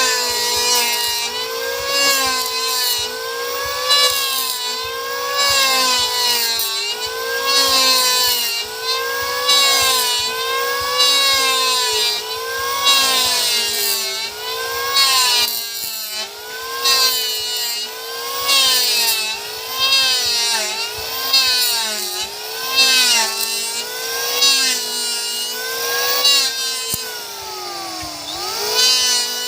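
Electric hand planer running and shaving wood in repeated passes: the motor's whine rises and falls about every two seconds as the blade takes each cut, with a hiss of shavings over it. Near the end the pitch dips lower, then recovers.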